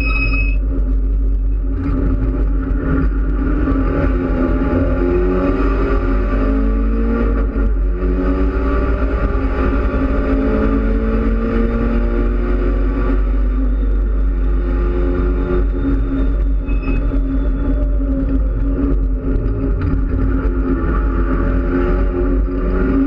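Mitsubishi Lancer Evolution X race car's turbocharged four-cylinder engine, heard from inside the cabin at full load on track. Its pitch rises again and again and drops back at each gear change. Steady road and wind noise runs underneath.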